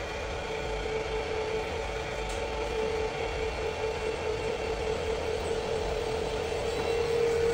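Overhead drill running with a steady hum while its twist bit bores into a crankshaft counterweight, removing metal to correct the crank's imbalance. The hum grows a little louder near the end.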